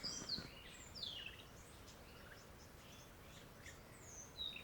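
Several rainforest birds calling faintly: scattered short chirps and brief whistled glides, some rising and some falling.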